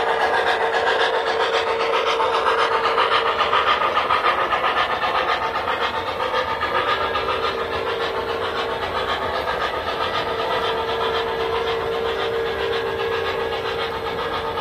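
O gauge model train running past: the double-headed steam locomotives' sound systems chuffing in a steady pulse with steam hiss, and the cars' wheels clattering along the track, over a steady hum.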